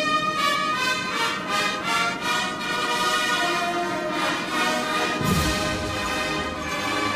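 Massed military brass band playing a slow melody in full harmony, with a deep low rumble joining about five seconds in.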